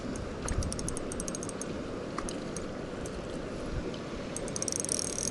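Spinning reel being cranked to wind in a hooked fish: light, quick ticking from the reel, denser and louder about four and a half seconds in, over a steady low rush.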